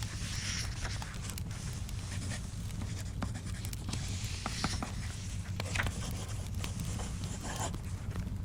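Study-ambience mix: scratching on paper in short strokes, about twice, over scattered crackling clicks and a steady low rumble.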